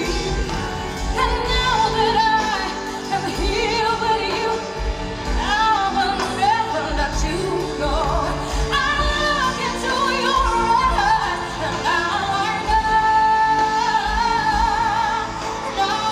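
A woman singing a pop ballad live over band accompaniment, with vibrato on long held notes, heard through an arena's sound system.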